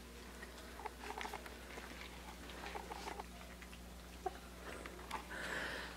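Young Australian Shepherd puppies lapping puppy mush from a metal baking pan: faint, irregular small wet clicks and smacks. A brief soft rustle a little after five seconds in.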